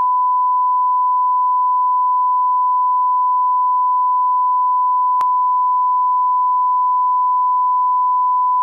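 Steady electronic line-up test tone held at one unchanging pitch, with a faint click about five seconds in.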